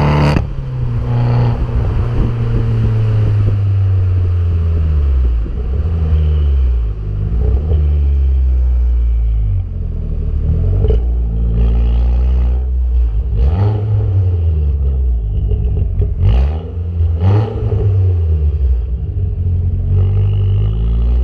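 Abarth Grande Punto's 1.4 turbocharged four-cylinder engine revving repeatedly through its exhaust, the pitch climbing and falling between steadier stretches, with several short sharp cracks in the second half.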